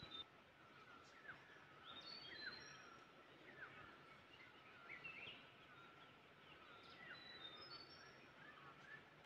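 Faint jungle ambience: several birds calling with short falling chirps and brief high whistles, over a steady high hum.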